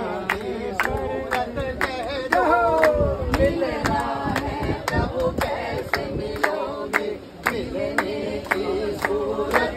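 A group of people singing a Hindi devotional bhajan in chorus, with steady hand clapping on the beat about twice a second.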